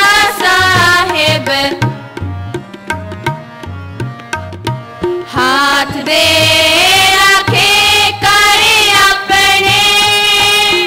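Children singing a Sikh kirtan shabad in unison to harmonium and tabla. The voices stop about two seconds in while the harmonium and tabla play on for about three seconds, then the singing resumes.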